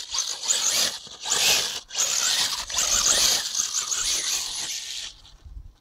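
A 1:10 scale FTX Vantage 4x4 RC buggy running on its sensorless brushless motor. It whines in three throttle bursts, short ones at the start and about a second in, then a longer one of about three seconds, with the tyres scrabbling on loose dirt.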